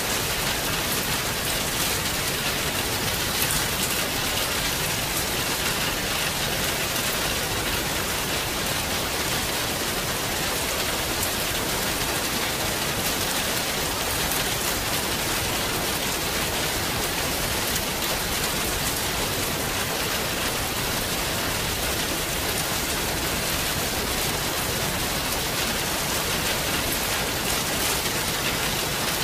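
Rain falling steadily: an even hiss dotted with many small drop hits, holding the same strength throughout.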